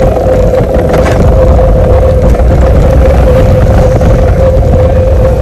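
Loud, steady wind rushing over the microphone of a camera on a moving bicycle, with a steady mid-pitched hum underneath.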